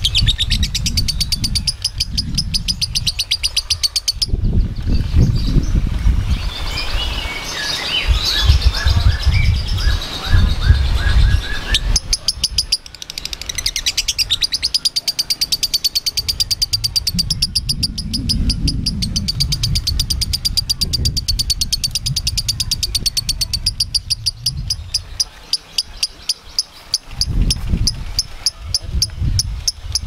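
Lovebird chattering: long, fast strings of sharp high notes, several a second, with a burst of warbling chirps about eight to eleven seconds in. It is the continuous chatter that lovebird fanciers call 'gacor'. A low rumble runs underneath.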